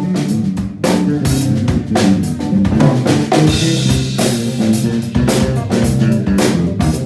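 A live band playing, led by a drum kit and an electric bass guitar: a steady groove of drum and cymbal strikes over a running bass line.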